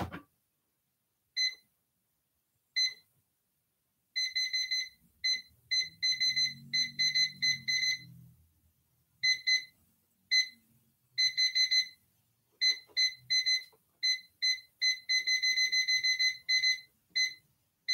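Short, high-pitched electronic beeps from an air fryer's control panel as its buttons are pressed to set a cook time of about five minutes. The beeps come singly at first, then in irregular clusters and quick runs.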